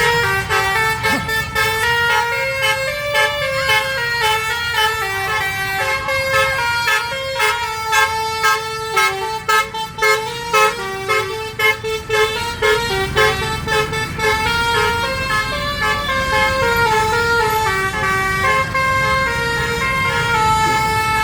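Indonesian 'telolet' bus horn, a set of multi-tone horns playing a tune in quick stepped notes, with a run of short staccato toots in the middle. A low engine rumble runs underneath.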